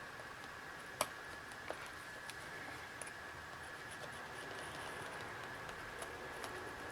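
Faint, scattered clicks and light scratches of small parts and tools being handled on the tablet during repair work, a few seconds apart, over a faint steady high-pitched hum.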